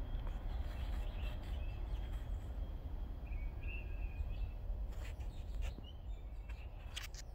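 Outdoor ambience: a steady, fluctuating low rumble, with a few short songbird chirps near the middle and several sharp clicks in the last couple of seconds.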